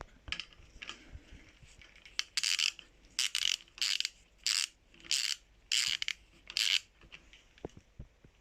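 Ratchet wrench with a 10 mm socket undoing the last bolt of an air compressor's cylinder head: about seven short spells of ratchet clicking in an even back-and-forth rhythm, each a return swing of the handle.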